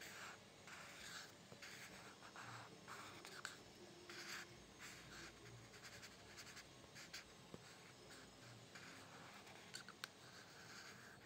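Faint scratching of a pencil lead drawing on textured paper, in many short, separate strokes. A couple of small sharp ticks come near the end.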